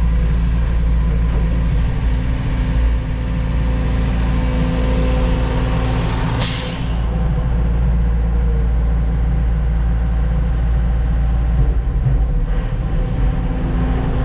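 Heavy diesel logging truck's engine running steadily, with one short, sharp hiss of released air, typical of the truck's air brakes, about six and a half seconds in.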